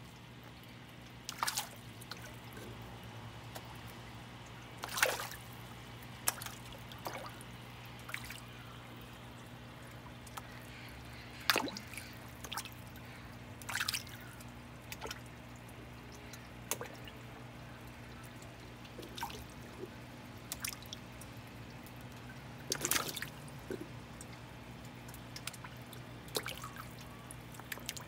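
Pond fish (bass, bluegill and koi) splashing and plopping at the water surface as they take floating food, in irregular bursts every second or two, some louder than others, over a steady low hum.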